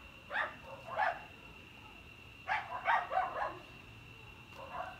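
A dog barking in short barks: two single barks, then a quick run of four about halfway, and one more near the end.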